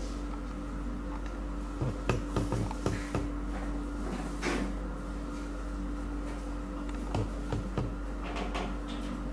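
Power cord and connector being plugged into a laser machine: scattered plastic-and-metal clicks and knocks, a cluster about two seconds in and a few more near the end, over a steady low hum.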